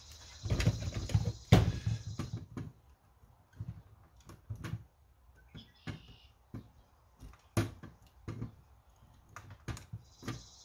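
Irregular clicks and knocks of pliers and hard plastic parts being handled inside an opened Nerf Vulcan blaster while a wire is worked through a hole in the motor's terminal, busiest in the first couple of seconds. A steady high hiss sounds at the start and again near the end.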